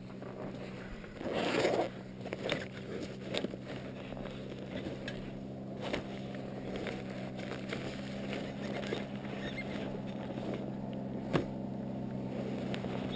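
An ATV engine running steadily at an even speed. A brief rustling scrape comes about a second and a half in, and there are a few sharp clicks, one near the end.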